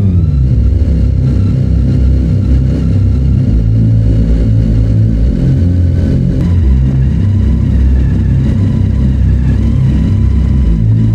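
Honda CBR600 F3's inline-four engine idling steadily.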